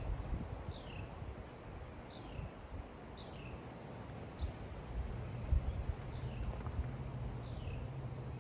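A bird calls again and again, a short downward-sliding chirp about once a second, over wind buffeting the microphone. A low steady hum comes in about halfway through.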